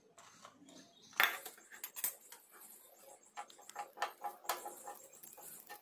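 Butter melting on a hot nonstick tawa, crackling with scattered small pops and ticks, the loudest about a second in, while a steel spoon clinks against the pan and pushes the butter around.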